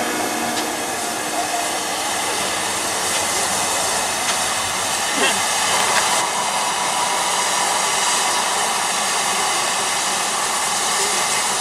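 Steam locomotive approaching, giving off a steady hiss of steam.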